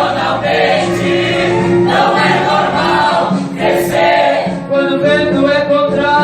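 Choir singing a gospel hymn, with sustained sung notes held continuously.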